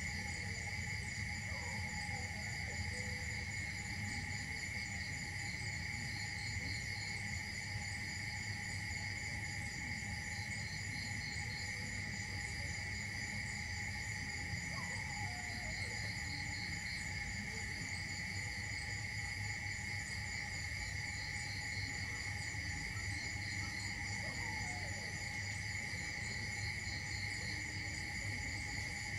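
Steady insect chorus: one constant shrill drone with higher pulsing trills over it, above a low background rumble. A few faint falling calls come now and then.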